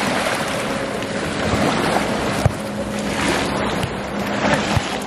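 Motorboat under way on open water: wind rushing over the microphone and water noise against the hull, with a steady low engine hum underneath and a few small knocks.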